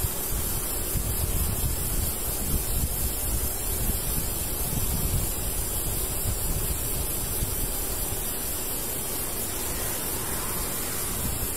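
Wind buffeting the body-worn camera's microphone: a steady rush of noise with an uneven low rumble and no other clear sound.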